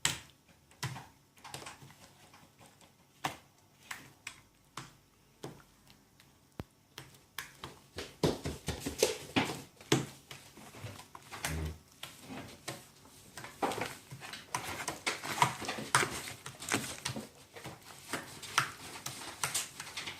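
Homemade slime made with laundry detergent being mixed and worked on a plate, giving irregular sticky clicks and wet snaps. These grow busier and louder about eight seconds in.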